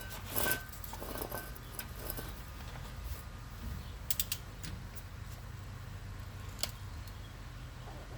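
Scattered sharp metallic clicks from a torque wrench and ratchet, with a tight cluster of clicks a little past the halfway point, as the rear differential cover bolts are tightened. A low steady hum sits underneath.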